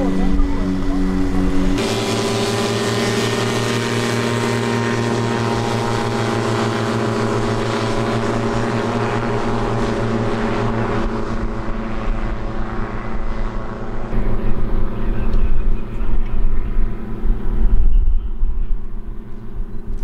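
Microlight aircraft's pusher-propeller engine running at a steady drone, its pitch holding even. The sound changes abruptly about two seconds in, and grows louder and more uneven over the last few seconds.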